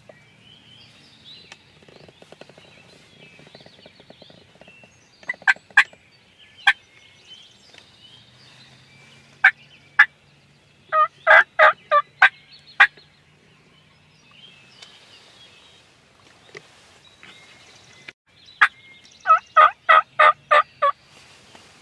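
Wild turkey calling: a few single loud notes, then two runs of six or seven short notes at about three a second, one about halfway through and one near the end.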